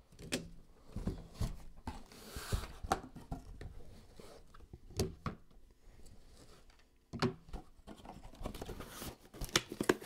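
Hands unpacking a cardboard box and handling hard plastic card cases: scattered light clicks, knocks and rustles as the cases are lifted out and set down, with a brief rustle about two and a half seconds in and a quick run of clicks near the end.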